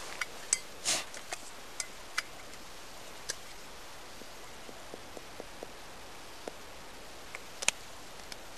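Scattered sharp clicks and light clinks of small metal parts being handled: a Trangia spirit burner, its lids and its stand. A cluster of clicks comes in the first few seconds, softer ticks follow in the middle, and one loud click comes near the end.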